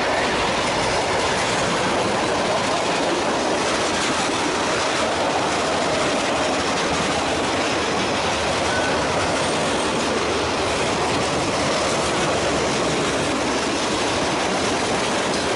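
Freight cars of a mixed manifest train rolling steadily past: covered hoppers, boxcars and tank cars, with the steady noise of their wheels on the rails.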